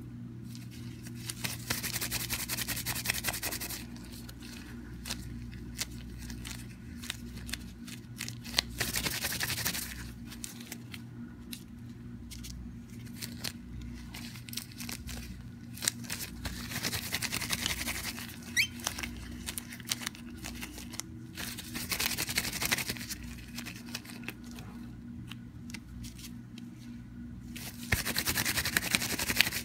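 Gloved hands rolling polymer clay on a sheet of paper: about five bursts of rubbing and rustling, each one to three seconds long, with a few small taps in between. A steady low hum runs underneath.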